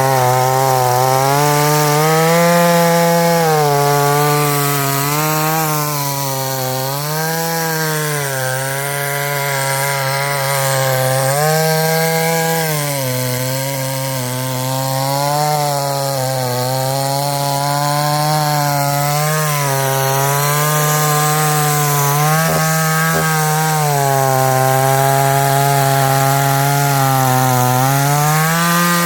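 Multi Pro chainsaw running continuously, its engine speed sagging and picking back up every few seconds.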